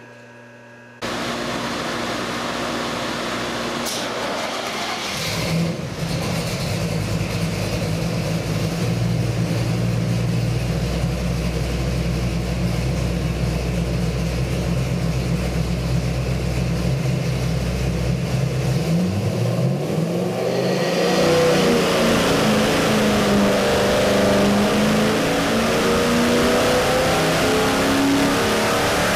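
Chevy 383 small-block stroker V8 with a hydraulic roller cam and a Holley 750 carburettor, running on an engine dyno. It idles steadily, then about twenty seconds in it starts a dyno sweep pull and revs up under load past 4,000 rpm.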